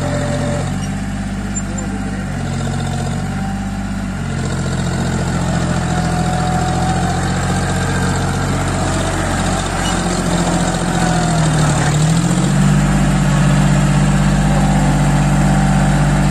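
John Deere tractor's diesel engine running under load as the tractor drives through soft paddy-field mud. Its pitch shifts a few times, dips briefly about three quarters of the way through, then holds steady and a little louder.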